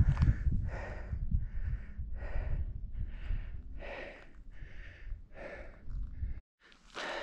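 A hiker walking: a regular series of short scuffing steps, about one and a half a second, with wind rumbling on the microphone until it drops out near the end.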